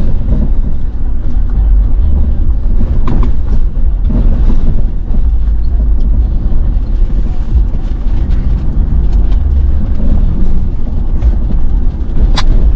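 Pickup truck driving, heard from inside the cab: a steady, loud low rumble of engine and road, with scattered knocks and rattles and one sharp click near the end.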